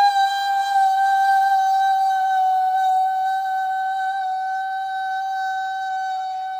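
One long, unbroken high-pitched tone held at a steady pitch, slowly getting quieter.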